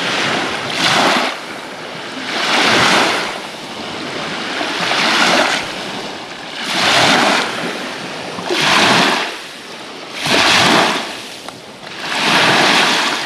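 Small waves washing up on a sandy lake shore, one swell of surf every two seconds or so, seven in all.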